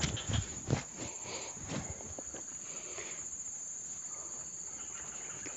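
Insects chirring steadily at a high pitch, with footsteps and rustling through grass and undergrowth in the first couple of seconds.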